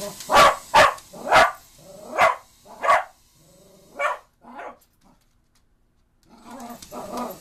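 Cocker spaniel barking at a mini drone: a run of about seven sharp barks over the first five seconds, the last couple weaker, then a pause.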